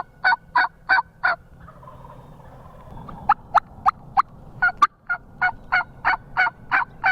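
Turkey yelping: runs of short, evenly spaced two-toned notes, about three a second, pausing briefly about one and a half seconds in and again near the middle.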